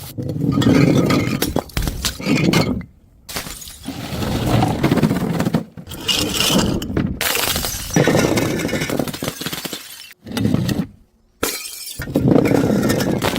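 Glass bottles breaking and shattering, with crunching and clinking of the pieces. It comes as a string of about six short, loud stretches that cut off abruptly one after another.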